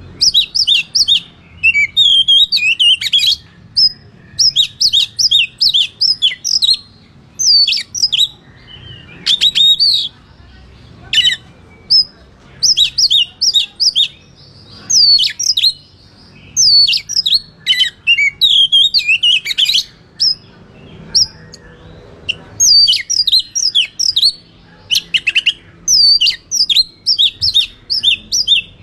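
Oriental magpie-robin (kacer) singing a loud, fast fighting song: bursts of sharp chirps and whistled notes, phrase after phrase with short pauses between.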